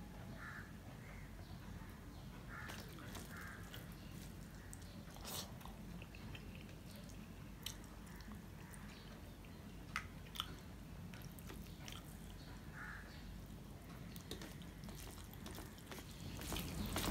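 Faint chewing and lip-smacking of a man eating hand-mixed rice and curry, with scattered soft, wet mouth clicks and a few sharper ones.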